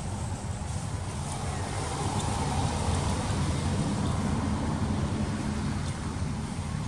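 Steady low rumble of a passing motor vehicle, swelling towards the middle and easing off.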